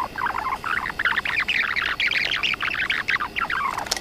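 Rapid, high-pitched squeaky chattering from recorded news footage playing on a television, which sounds like tape being fast-forwarded.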